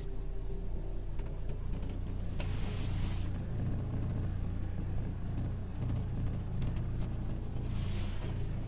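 Buick Excelle's engine heard from inside the car, a steady low drone with a booming cabin resonance. The owner complains that this resonance is very loud in the cabin and goes away when the throttle is pressed.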